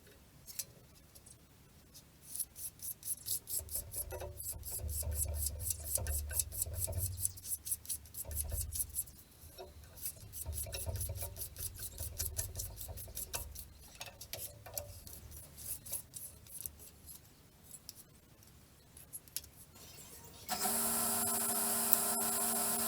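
Hand tool working wood in quick rhythmic scraping strokes, like filing or sanding, with pauses between runs of strokes. Near the end a motor starts suddenly and keeps running with a steady hum.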